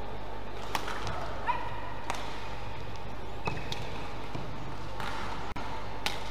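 Badminton rally: a shuttlecock struck back and forth with rackets, about five crisp hits spaced a second or so apart, with a couple of short shoe squeaks on the court floor over a steady hall murmur.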